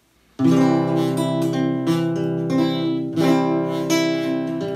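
Acoustic guitar strummed, playing a chordal introduction. It comes in about half a second in after a brief silence, with a couple of chord changes.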